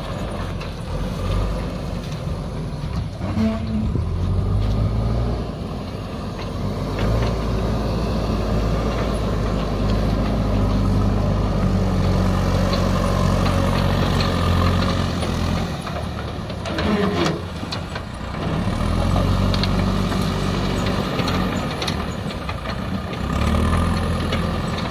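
JCB backhoe loader's diesel engine running, its pitch rising and falling several times as the machine works.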